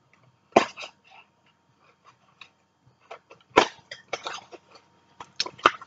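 Scattered short knocks and rustles of a cosmetics box and bottle being handled, a few separate bursts a second or more apart.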